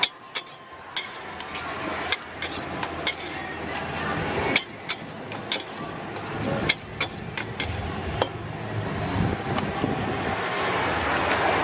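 Metal wok ladle clanking and scraping against a steel wok as food is stir-fried, in irregular sharp clinks, several of them loud.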